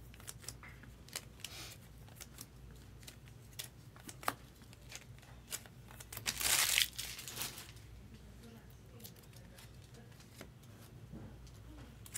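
A baseball card pack's wrapper is torn open, with one crinkling tear between about six and seven and a half seconds in, among small clicks and taps of cards being handled.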